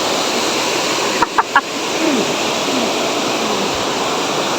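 Water rushing steadily down below a dam, with three quick short chirps from a bird about a second and a half in.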